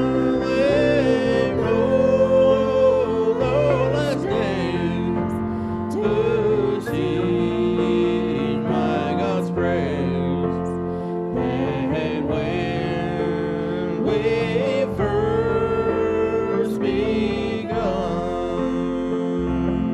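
Gospel-style church music: a wavering melodic lead over sustained chords and a steady bass line.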